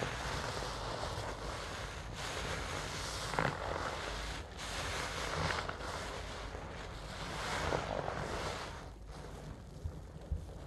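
A soaked cellulose sponge squeezed and wrung by gloved hands in a basin of thick suds: wet squelching and fizzing foam, rising with each of several squeezes.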